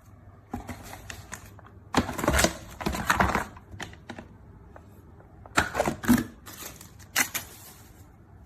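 Typing on a ZIYOU K3 mechanical keyboard with red linear switches: bursts of rapid keystroke clacks. The busiest run is from about two to three and a half seconds in, and another burst comes around six seconds.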